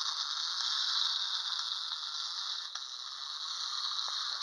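Clockwork spring motor of a 1930 Marx tin wind-up toy tractor running, a steady high-pitched whirring rattle as the toy crawls along.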